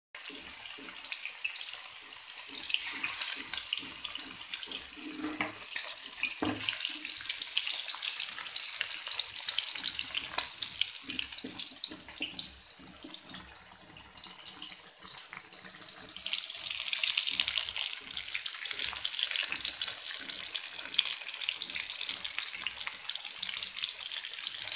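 Snakehead fish steaks frying in hot mustard oil in a wok: a steady sizzle with constant small spitting crackles, easing off around the middle and growing louder again in the second half.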